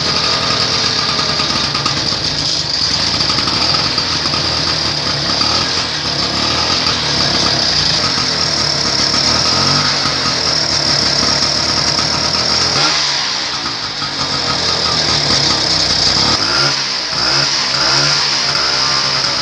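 Vespa scooter engine running steadily, then revved up and down a few times in the second half.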